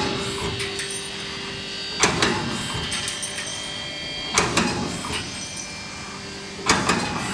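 Pipe hole punching machine punching holes in rectangular metal tube: three sharp punch strokes, one about every two and a half seconds, over a steady machine hum.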